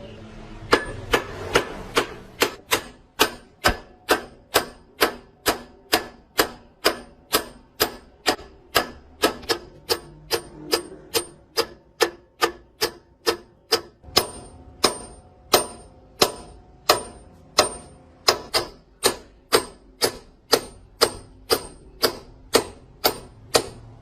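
A hammer striking metal in a steady rhythm of about two blows a second, each blow ringing briefly, starting about a second in.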